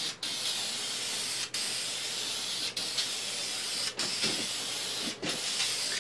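Krylon Crystal Clear gloss aerosol hissing steadily as clear coat is sprayed onto bare pine, broken by five very short gaps about every second and a quarter.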